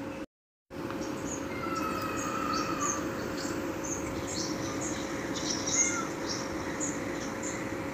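Animal calls: many short, high chirps, with a longer whistling call about two seconds in, over a steady low hum. The sound drops out completely for a moment near the start.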